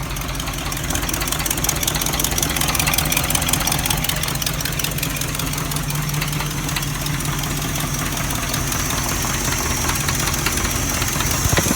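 Oldsmobile 455 V8 idling with a steady, rapid knock, which the owner places at the top rear of the engine.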